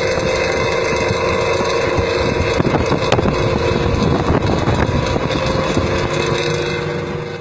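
Bus engine running through a loud aftermarket exhaust with a tinny, snoring rasp; the steady running eases off slightly near the end.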